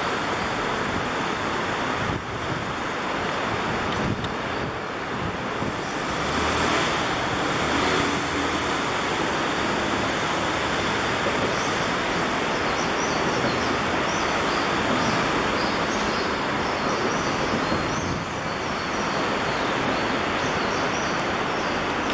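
Steady wash of road traffic and wind noise, with faint high chirps between about 12 and 19 seconds in.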